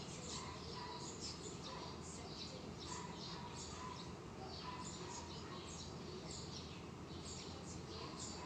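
Birds chirping in the background: many short, high, falling chirps, irregularly spaced, over a steady low room hum.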